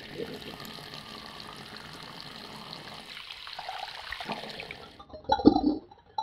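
Water running from a bathroom sink mixer tap into the basin, a steady rush that changes as hands are rinsed under it, then dies away about five seconds in. A brief, much louder sound follows near the end.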